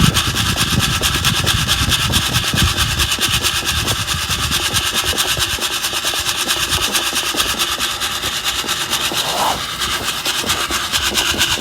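Coffee beans rattling and scraping in a Sierra cup shaken over a wood fire during roasting, a fast continuous rattle over a steady hiss.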